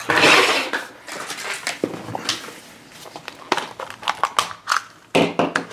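Small hard plastic toy pieces and a plastic toilet-shaped blind-pack capsule being handled on a table: a rustling scrape at the start, then a string of sharp plastic clicks and taps as the capsule's snap-on lid is worked open.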